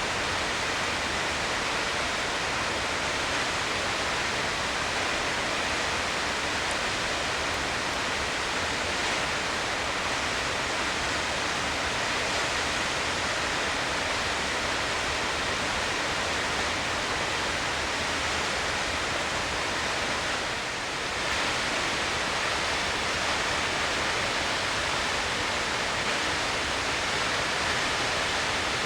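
Steady, dense rush of a tall waterfall, water plunging and splashing without letting up, dipping slightly for a moment about two-thirds of the way through.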